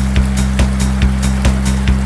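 Background music with a steady beat of about two beats a second over sustained low bass notes.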